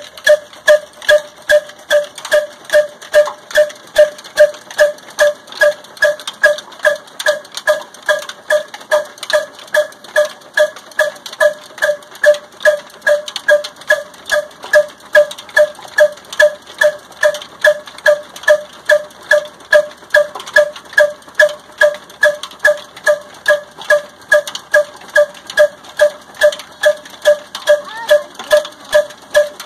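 An old black 'desi' single-cylinder diesel engine running steadily under load, driving a chakki flour mill through flat belts. Its beat is even and regular, about two strokes a second.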